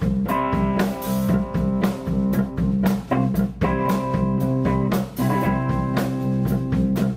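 Live band playing an instrumental passage: electric guitar over electric bass and a Ludwig drum kit keeping a steady beat.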